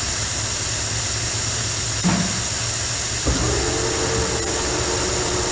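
A metal lathe's spindle is switched on about three seconds in: a sudden low thump, then a steady hum as the chuck spins up, over a steady hiss.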